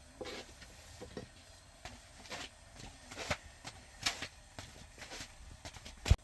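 Scattered light knocks and clicks of household handling, one every second or so, with one sharp, much louder knock near the end.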